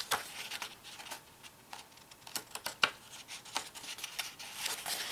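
Hands handling the pages of a hardcover picture book: scattered soft taps and paper rustles, then a page being turned, rustling, near the end.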